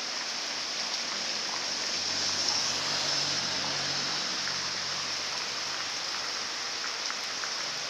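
Steady rain falling and splashing on surfaces, an even hiss. A faint low hum rises under it for a few seconds in the middle.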